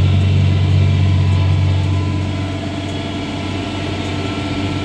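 Tractor engine running steadily, a low even hum that eases slightly about two seconds in.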